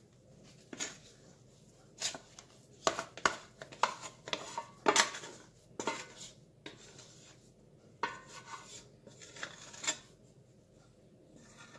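Stainless steel mixing bowl knocking and scraping against the countertop in irregular clatters as sticky dough is tipped out of it onto flour. The knocks come thickest and loudest about halfway through and stop shortly before the end.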